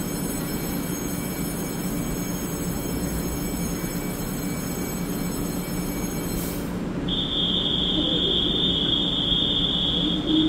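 EMU3000 electric multiple unit standing at the platform with a steady hum from its onboard equipment and a faint high whine that cuts off about seven seconds in. A steady high-pitched electronic tone then sounds for about four seconds.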